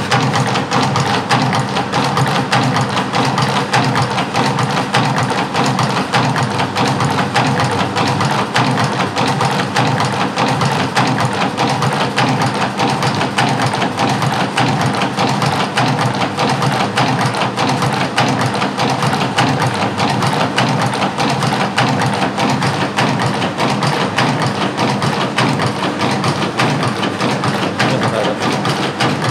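Automatic jewellery chain-making machine running, a fast, steady mechanical clicking clatter as it forms metal chain link by link.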